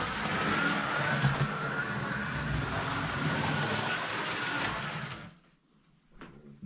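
Model train locomotive running on its track: a steady motor whir and wheel rattle with a faint wavering whine. It stops abruptly about five seconds in, followed by a few faint clicks.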